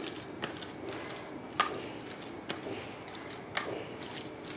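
A hand mashing and kneading crumbly fresh chhena (milk curds) in a stainless steel bowl: faint soft squishing, broken by a few short clicks.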